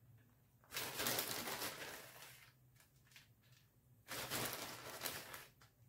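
Plastic bag of shredded cheese rustling and crinkling as a hand reaches in and sprinkles cheese, in two bursts about three seconds apart.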